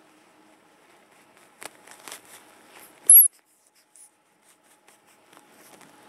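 Baby European hedgehogs scratching and rustling against each other, then one hoglet gives a single short, very high-pitched peep, falling in pitch, about three seconds in.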